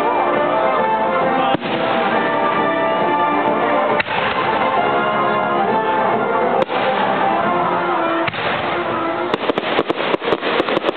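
Aerial fireworks going off over steady music: single sharp bangs every couple of seconds, then a rapid run of crackling reports near the end.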